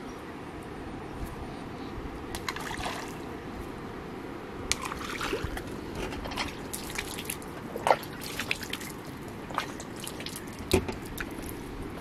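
Small water splashes and drips as handfuls of bran groundbait are tossed into the lake, scattered irregular plops over a steady low background.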